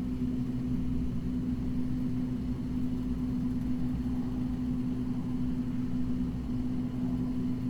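Steady machine hum with one constant low tone over a low rumble, unchanging throughout.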